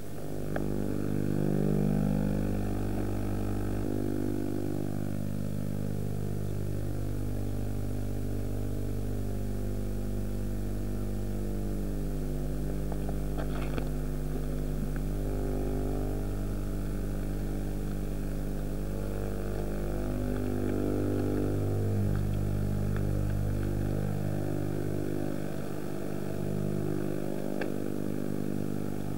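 A vehicle engine runs steadily while driving, heard from inside the vehicle, its pitch drifting slowly up and down.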